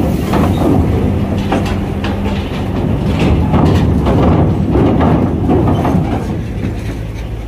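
Heavy truck's diesel engine running as it drives off a ferry, with irregular metallic clanks and rattles as its wheels cross the steel ramp.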